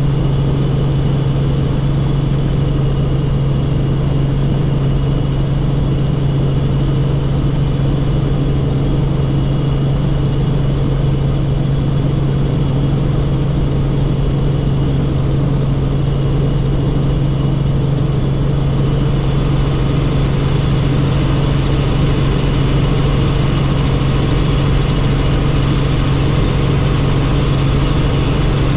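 Helicopter in flight: a steady, loud drone of engine and rotors with a high turbine whine above it. The sound takes on more hiss about two-thirds of the way through.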